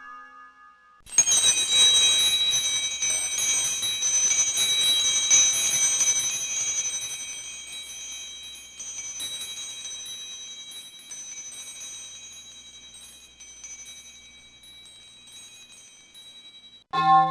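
A small metal bell starts about a second in and is rung rapidly and continuously, giving a high, shimmering ring. It slowly dies away over the next ten seconds. A different bell tone cuts in at the very end.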